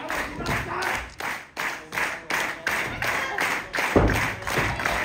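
Crowd clapping in unison at about three claps a second, rallying a wrestler trapped in a submission hold. A dull thud comes about four seconds in.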